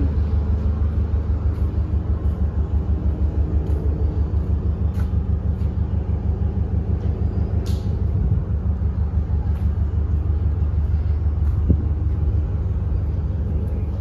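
Freight train of container wagons and boxcars rolling past on the adjacent track: a steady low rumble with a regular beat of several pulses a second, and a few faint clicks.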